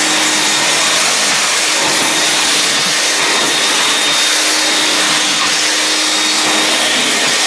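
Vax 221 wet/dry canister vacuum's two-stage motor running steadily, a continuous rushing hiss with a faint steady whine, drawing suction through the Auto Mop head in wet mode.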